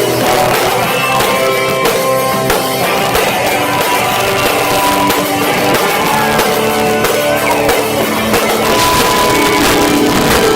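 Hardcore band playing live: distorted electric guitars and drums, loud and steady, muddied and distorted by a cheap cell phone's microphone.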